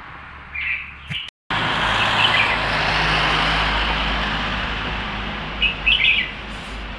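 A small bird chirping in short bursts: a couple of chirps in the first second, one more around two seconds, and a cluster of chirps near the end. After a brief cutout, a loud rushing noise with a low rumble comes in and slowly fades, louder than the chirps.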